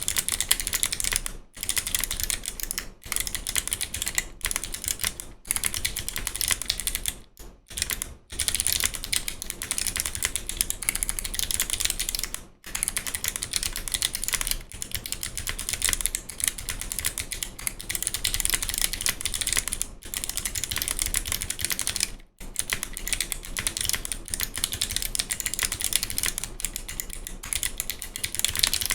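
Continuous fast typing on a mechanical keyboard with Kailh Box Navy clicky switches, sounding thick, heavy clicks on every keystroke, broken by short pauses.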